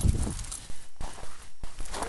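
Snow crunching and rustling under corgis, in irregular crunches with low thumps.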